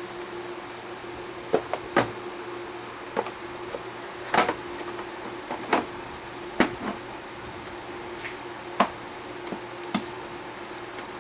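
Scattered sharp clicks and knocks of hard plastic intake parts being handled and pushed together as the intake duct is fitted onto the mass airflow sensor housing, about eight separate clicks over the stretch, over a steady faint hum.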